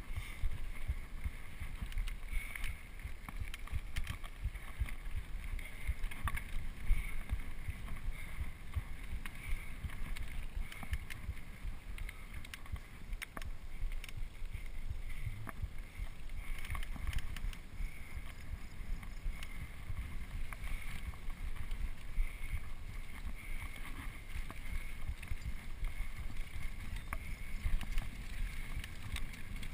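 Wind rumbling on a GoPro's microphone as a mountain bike rides fast over a dirt single-track trail, with many small rattles and knocks from the bike going over bumps.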